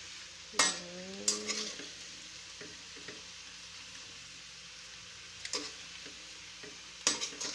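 A metal spoon stirring and scraping jackfruit and sugar in a stainless steel pan on the stove, clinking against the pan a few times, over a steady sizzle as the fruit heats and gives off its juice.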